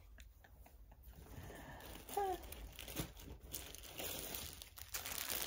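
Plastic packaging crinkling as it is handled, faint at first and growing louder over the last couple of seconds.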